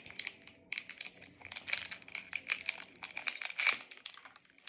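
Toy packaging crinkling and crackling in irregular bursts as it is handled and opened.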